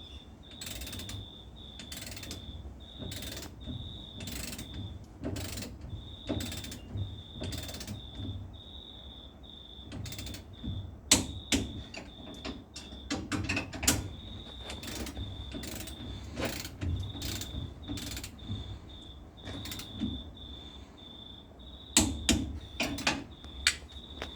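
Ratchet spanner clicking in strokes about once a second, with a faint high-pitched tone coming and going in short dashes behind it.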